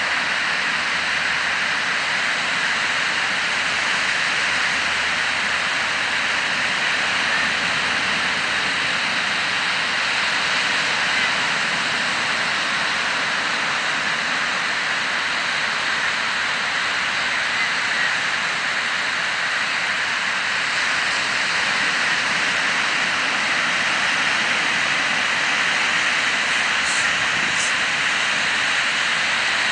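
Ocean surf breaking and washing up the beach: a steady, even rushing noise.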